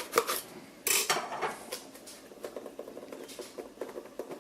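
A cardboard shipping box being opened and handled: a few sharp clicks, then a loud scraping burst about a second in, followed by lighter rustling and clicking.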